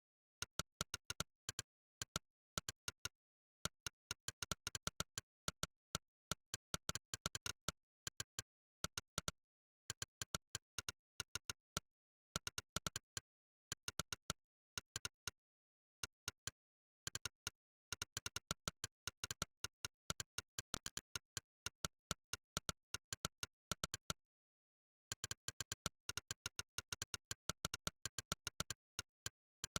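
Monkeytype's "click" keypress sound effect: one short synthetic click per keystroke, in quick irregular runs of several a second. The runs break off for about a second now and then, and there is dead silence between clicks.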